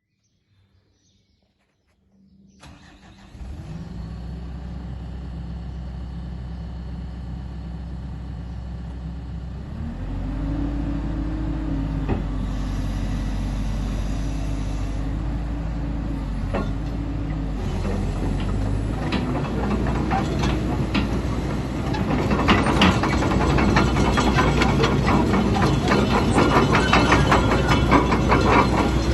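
Diesel engine of a CAT 312DL crawler excavator cranking and starting about two seconds in, then running steadily. About ten seconds in it steps up to a louder, deeper run, and for the last several seconds dense metallic clicking and rattling ride over it.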